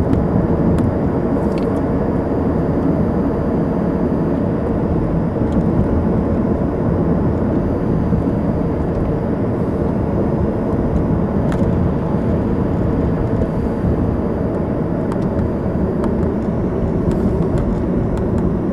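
Steady road and engine noise inside a moving car's cabin, with a faint steady hum and a few light clicks.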